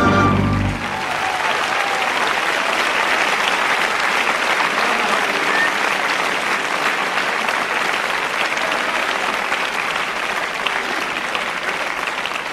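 A rock band's last chord cuts off less than a second in. A large concert audience then applauds steadily.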